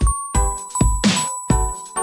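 A Nokia mobile phone ringtone: an electronic tune of bell-like notes over a steady beat of deep kick drums and snare-like hits.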